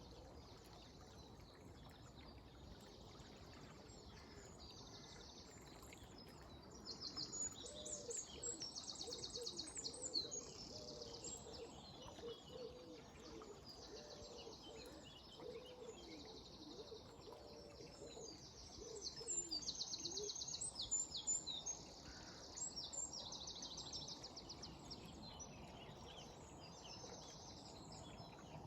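Dawn chorus of songbirds: high, fast trilling and chirping songs, with two louder spells about 7 and 19 seconds in, and a lower wavering call in between. Beneath them runs a faint steady hiss of flowing river water.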